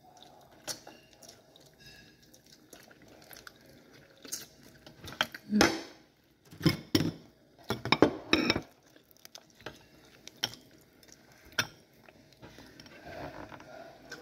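Cutlery clinking and scraping on dishes during a meal, with scattered light clicks, some chewing, and a cluster of louder clattering bursts in the middle.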